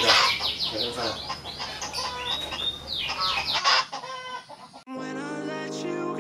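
Chickens clucking and chirping in quick, high, downward-sliding calls. Just before five seconds in they drop away and background music comes in with held, sustained notes.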